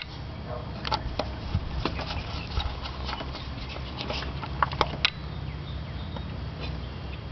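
Scattered light clicks and taps of hands fitting the coil wires inside an open distributor, with a few sharper clicks about a second in and again around the fifth second, over a steady low hum.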